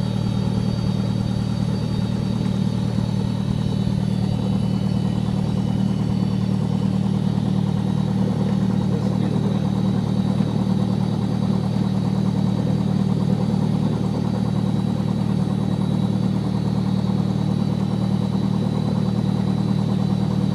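Single-engine light aircraft's piston engine and propeller running steadily at low power while taxiing, heard from inside the cabin as an even, unchanging drone.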